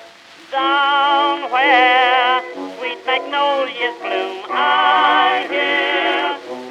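Background music: an old-time popular song, a man singing long notes with a wide vibrato over instrumental accompaniment, the singing starting about half a second in.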